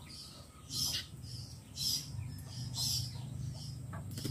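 A bird chirping in short high calls, about one a second, over a low steady hum.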